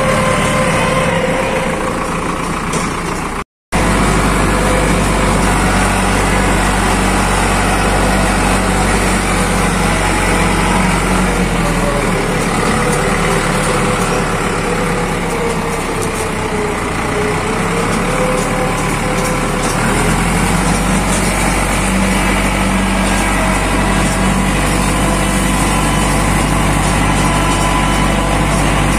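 Farm tractor engine running steadily as the tractor drives along, heard close up from the driver's seat. The engine note sags and comes back up between about 12 and 20 seconds in, and the sound cuts out for a split second a few seconds in.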